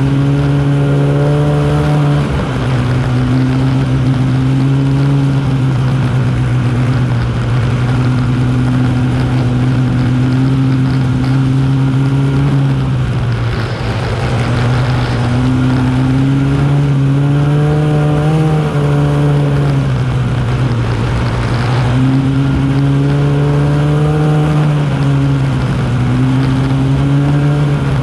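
Arctic Cat snowmobile engine running under way, heard from on the sled. Its note drops and climbs a few times as the throttle is eased off and opened again.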